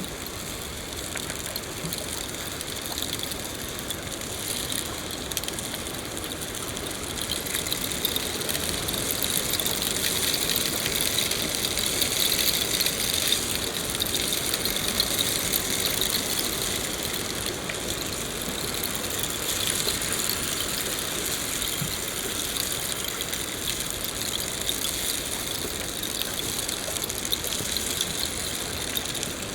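Steady rain falling in a forest, a dense patter of drops that grows a little heavier for a while around the middle.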